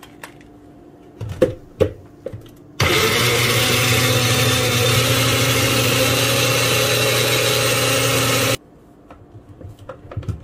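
Small personal blender grinding chopped aloe vera leaf. After a couple of sharp knocks, the motor runs at a steady pitch for about six seconds and cuts off suddenly.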